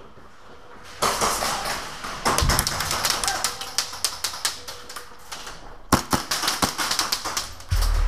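Airsoft gunfire: rapid volleys of sharp clicking shots from automatic airsoft guns, starting suddenly about a second in, with a second quick volley about six seconds in.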